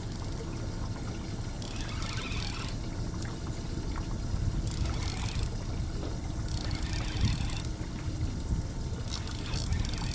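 Water sloshing against a small drifting fishing boat, over a steady low rumble, with short bursts of hiss about every two seconds.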